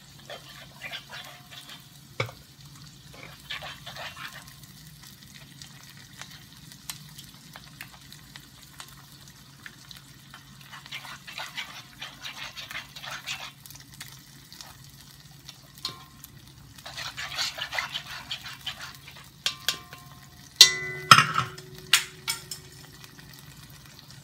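Tomato sauce, garlic and basil frying in a cast-iron wok as a metal spoon stirs and scrapes them, with bursts of sizzling over a steady low hum. Near the end the spoon knocks several times on the wok, which rings briefly after each knock.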